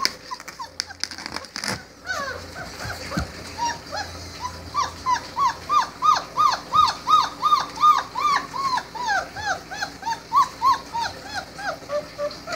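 Four-week-old Great Dane puppies whimpering: a run of short, high, rising-and-falling whines, about three a second, starting about two seconds in. A few knocks and rustles come before it.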